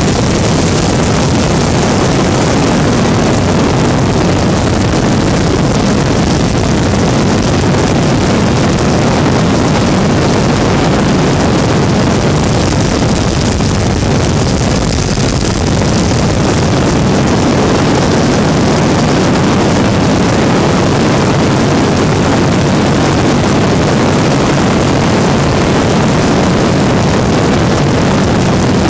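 Weedhopper ultralight in flight: its small two-stroke engine and propeller running at a steady, unchanging power, heard as a loud continuous drone.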